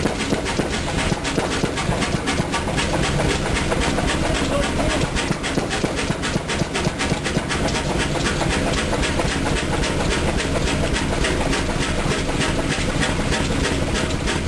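1924 Chicago Pneumatic 50 horsepower diesel engine running steadily, with a continuous rapid knocking over a low rumble.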